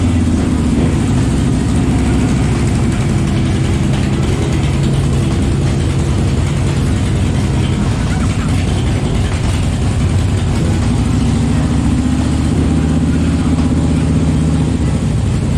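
Engines running steadily: a loud, low drone made of several steady tones.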